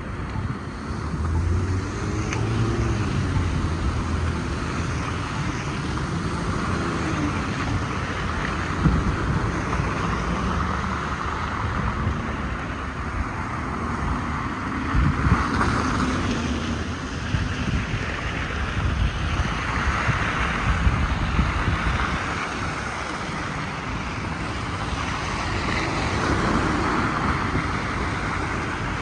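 Car traffic passing on a slushy, snow-covered street: tyres hissing through wet slush and engines running, swelling and fading as each car goes by.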